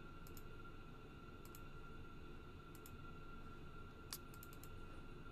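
Faint computer mouse clicks, a few pairs spread out, the clearest about four seconds in, over a steady low hiss and a faint high whine.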